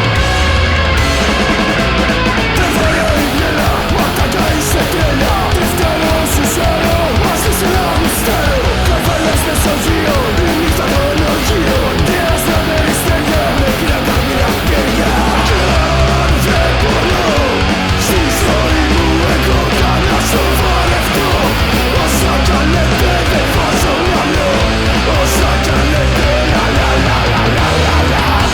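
Punk rock recording of a band playing at steady full volume: distorted electric guitar driving throughout, with frequent sharp drum and cymbal hits.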